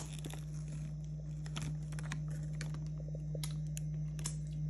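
Scattered light clicks and crinkles from handling, a few a second, over a steady low hum.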